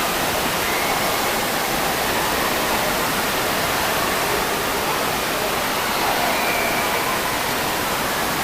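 Steady rushing of water from an indoor water park's pools and water features, with faint voices under it.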